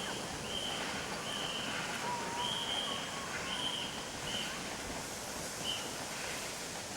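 Birds calling over a steady hiss of rain: a run of short, high, level notes, each about half a second long, with a brief wavering whistle about two seconds in.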